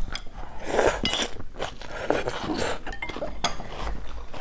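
Rice noodles being slurped and chewed, with a few sharp clinks of chopsticks and spoons against bowls.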